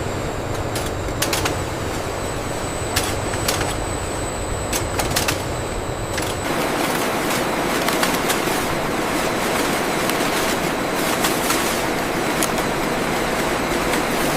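Factory machinery running with a steady mechanical noise and scattered clacks. About six seconds in the noise turns denser and more even.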